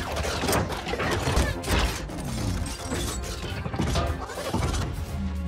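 Robot-transformation sound effect of a truck turning into a robot: a dense run of metallic clicks, clanks and ratcheting over a low rumble, with short whirring glides.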